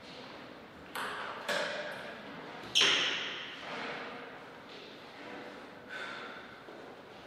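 Three sharp knocks that ring in a large hall: one about a second in, another half a second later, and the loudest near three seconds. After them the hall is quiet.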